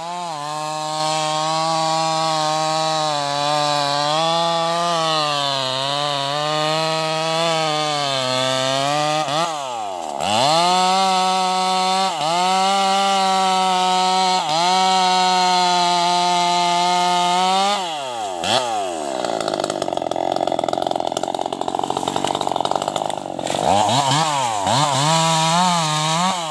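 Bosco 5880 two-stroke chainsaw cutting through a teak log at high revs. The revs dip and pick up again several times, and in a rougher, noisier stretch about three-quarters in, the chain is working in the wood.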